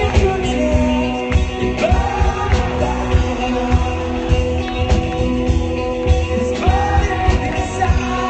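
Live rock band playing: a male lead singer sings over electric guitar and drums, with a steady beat. It is heard through a phone's microphone among the audience, cut off at the top end.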